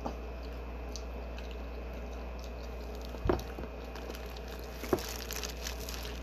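Plastic-gloved hands rustling in a plastic seafood-boil bag of sauced clams and shrimp: a dull thump about three seconds in, a sharp click near five seconds, then crinkling plastic.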